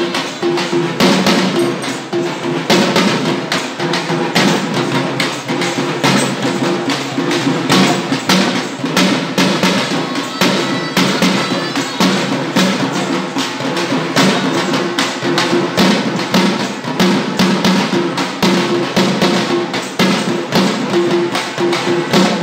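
Soma kunitha folk dance accompaniment: a large frame drum (tamate) and other drums beaten in a fast, dense rhythm, with a held pitched note sounding underneath.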